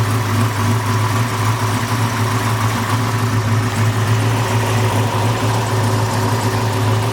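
Fuel-injected 355 small-block Chevrolet V8 idling steadily, with the lumpy idle of its solid-lifter cam.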